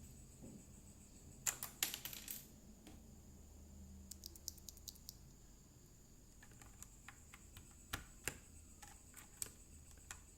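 Mechanical keyboard with Outemu Brown tactile switches: a few scattered, irregular keypress clicks and clacks, a quick cluster about a second and a half in and sparse single ones later, over a faint steady hum.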